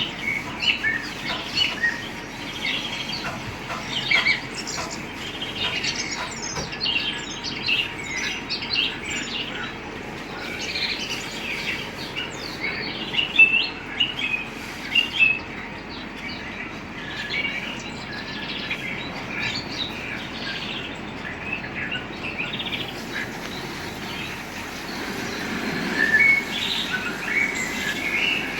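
Many birds chirping, a dense chorus of short overlapping calls and quick pitch sweeps. A low rumble builds near the end.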